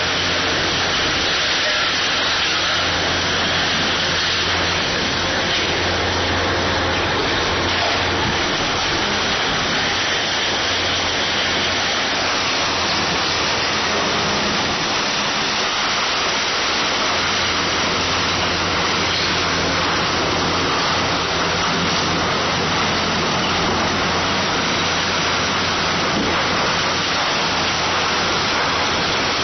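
KOBELCO SK500 hydraulic excavator's diesel engine running steadily under a constant rushing hiss, with no distinct impacts.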